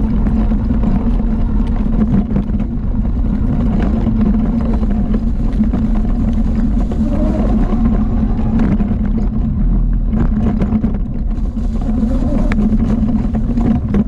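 Small youth ATV engine running steadily under way, with scattered knocks and rattles over the rough trail.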